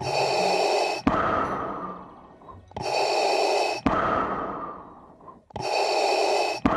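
Darth Vader's mechanical respirator breathing, three slow cycles about three seconds apart. Each is a sharp-edged hiss lasting about a second, followed by a longer breath that fades away.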